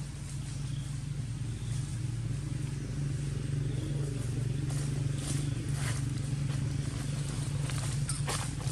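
A motor vehicle engine running steadily nearby, a low even hum that grows a little louder about three seconds in. A few short crackles come over it in the second half.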